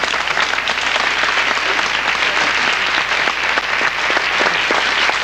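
A crowd of people applauding, with many hands clapping in a dense, steady patter.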